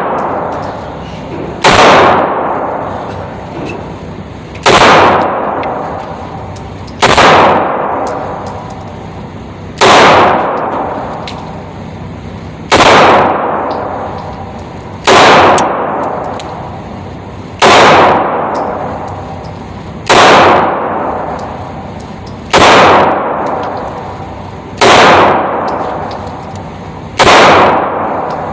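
9mm subcompact pistol fired slowly, about one shot every two and a half seconds, eleven shots in all, each shot ringing out and fading before the next.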